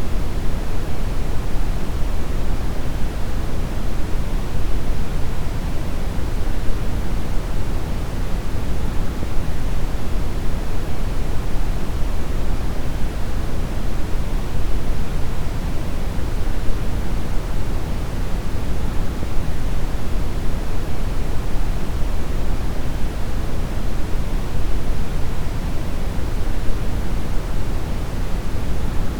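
Steady brown noise: a deep, even rushing hiss, strongest in the lows, with no change.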